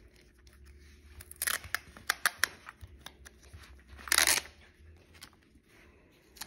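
Fingers handling Sennheiser Momentum 4 headphones in their case: a quick run of sharp taps and clicks on the earcup from about a second in, then a short rustling scrape about four seconds in.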